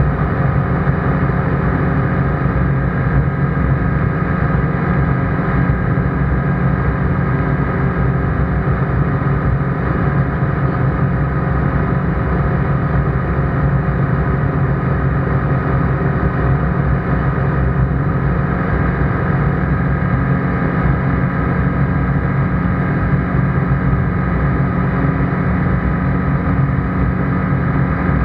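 Steady engine and propeller drone of an ICP Bingo ultralight in flight, heard loud inside the cockpit.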